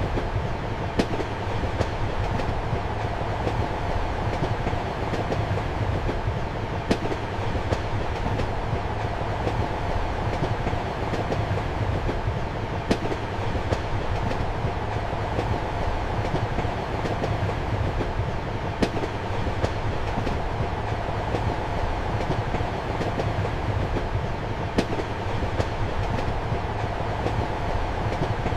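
Passenger train running, heard from inside a compartment: a steady rumble and hum with sharp wheel clicks over the rail joints, the loudest of them coming about every six seconds.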